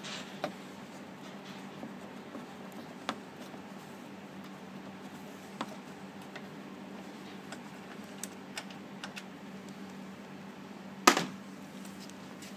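Scattered light clicks and taps of a T25 Torx screwdriver and fingers working on the headlight's lower screw and plastic housing, with one louder clack near the end. A steady low hum runs underneath.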